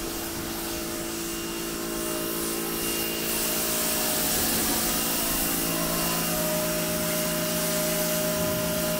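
Electric pressure washer running steadily, a motor hum under the broad hiss of its water spray.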